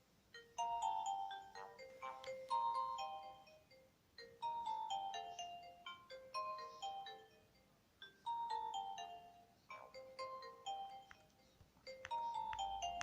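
Nokia 2310 mobile phone playing one of its built-in ringtones: a short melody of quick notes that repeats about every four seconds, with a brief pause between repeats.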